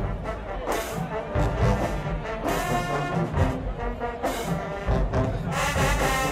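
HBCU marching band playing: a brass section of horns and trombones over a pounding drumline, with loud crashing accents about every two seconds.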